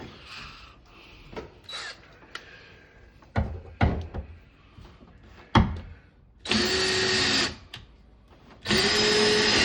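Power drill running in two bursts of about a second each in the second half, turning screws with a steady motor whine, after a few sharp knocks.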